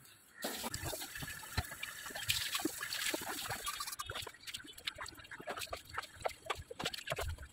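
Water running and splashing, with many small knocks and clicks, starting about half a second in.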